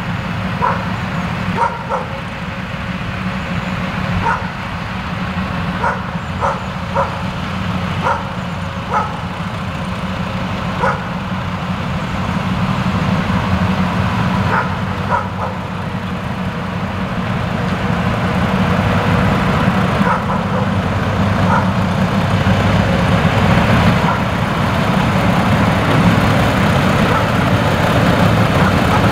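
Diesel locomotive D 4033 running at low speed as it pulls its train past, a steady engine hum that grows louder in the second half as it draws near. Over the first half come a dozen or so short, high yelps.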